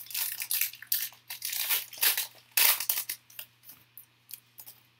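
A foil trading-card pack being torn open and crinkled by hand: a quick run of sharp crackling rustles that thins out to a few faint crackles over the last couple of seconds.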